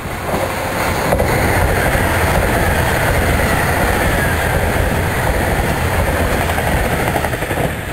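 JR Shikoku 2000 series diesel tilting express train passing close at speed: a loud steady rumble of engines and wheels on the rails. A faint high whine slowly falls in pitch through the pass. The sound swells about half a second in and eases slightly near the end.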